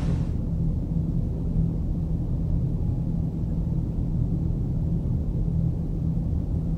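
Loud, steady low rumble with a hum running through it, from the ground shaking during a strong earthquake.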